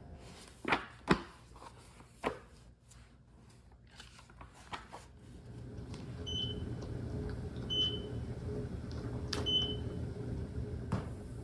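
Pages of a thick karaoke song catalogue being flipped, with a few sharp paper swishes in the first two and a half seconds. Then three short high beeps about a second and a half apart as a song request number is keyed into the karaoke machine, over a low steady hum.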